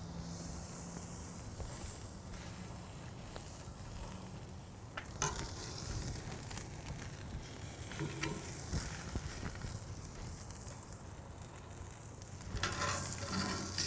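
Thick tomahawk ribeye steak sizzling steadily as it sears on a hot, oiled grill grate over lump charcoal. A few light clicks of metal tongs on the grate and meat, the loudest around the middle, as the steak is lifted and turned.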